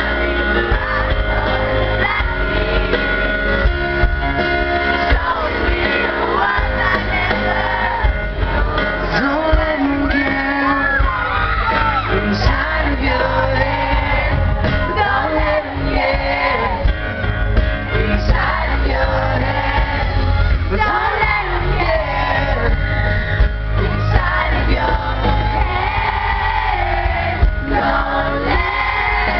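Live pop band playing and singing at a soundcheck, heard from among the audience, with fans shouting and singing along.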